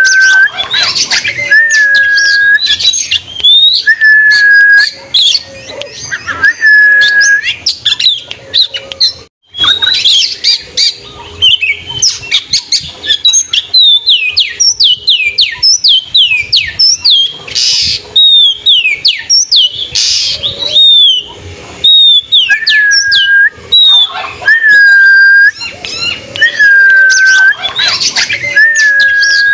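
Oriental magpie-robin (kacer) singing loudly: a long level whistle repeated every second or two, mixed with fast chattering and down-slurred notes. In the middle comes a quick run of falling notes.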